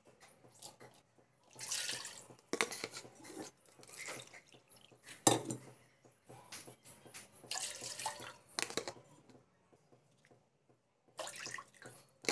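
Water splashing into a metal cooking pot in uneven bursts, with a sharp knock about five seconds in and a short pause near the end.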